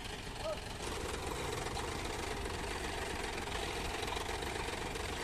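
Diesel tractor engine running steadily at idle close by. It gets louder about a second in and then holds even.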